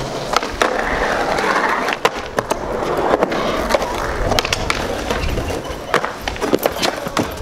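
Skateboard wheels rolling on concrete, with repeated sharp clacks of the board hitting the ground and ledges as tricks are tried.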